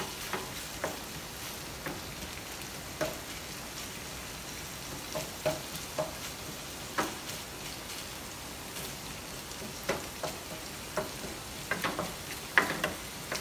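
Meat sizzling in a pan as the water it has released cooks off and its fat renders out, a steady frying hiss broken by sharp pops and clicks every second or two.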